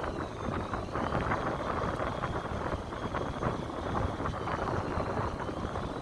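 Steady wind and sea noise on the deck of a fishing boat in high waves, with a faint high-pitched whine behind it.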